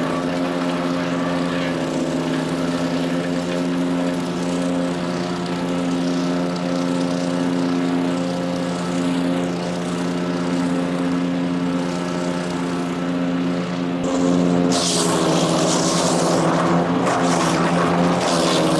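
PowerKing wood chipper shredder's single-cylinder Kohler CH440 engine running steadily at speed. About fifteen seconds in, a loud, harsh rushing, crackling noise of material going through the chipper joins in, and the engine pitch dips briefly under the load.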